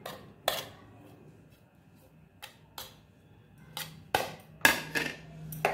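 Steel spoon tapping and scraping against plastic bowls as chopped herbs are scraped from one bowl into another. There is a single click about half a second in, a quiet stretch, then a cluster of taps and short scrapes near the end.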